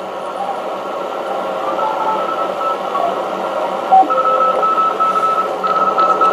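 Xiegu G90 HF transceiver receiving in CW mode on the 40-metre band: band hiss with faint Morse code tones at changing pitches as the dial is tuned. From about four seconds in, one stronger Morse signal keys on and off as a steady high beep.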